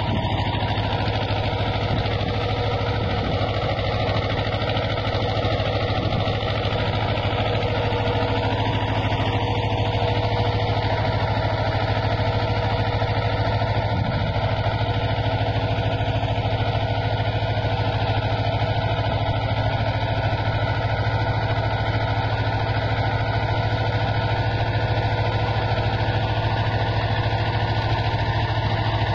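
Mahindra Jivo 245 DI 4WD compact tractor's two-cylinder diesel engine running at a steady speed under load while it pulls a ridger through the soil.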